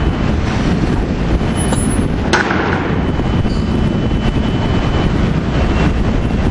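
Steady, loud rumble of running cement-plant machinery, with one sharp knock about two seconds in.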